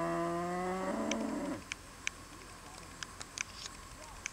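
A sheep bleating in one long call that cuts off about a second and a half in, followed by a few faint sharp clicks.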